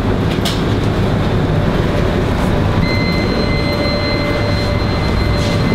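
Steady rushing roar of professional kitchen ventilation and equipment, with a thin high whine joining about three seconds in.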